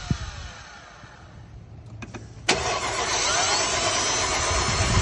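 2008 Mercedes-Benz GL450's V8 being turned over by the starter without catching: a fading spin-down at first, a couple of clicks, then the starter kicks in sharply about halfway through and cranks steadily. It is the crank-but-no-start fault.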